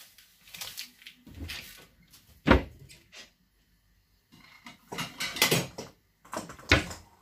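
Kitchen cupboard door knocking open and shut and a plate clattering as it is taken out and set down: a string of sharp knocks and rattles, the loudest about two and a half seconds in, more around five to six seconds in and one more near the end.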